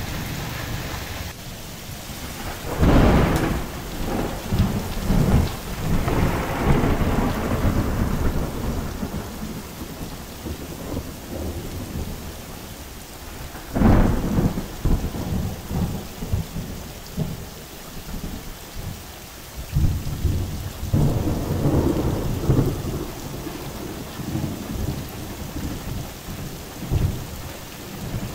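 Heavy rain falling steadily, with thunder: a sharp clap about three seconds in that rolls on into rumbling, another sudden clap about halfway through, and a swelling rumble about three-quarters of the way in.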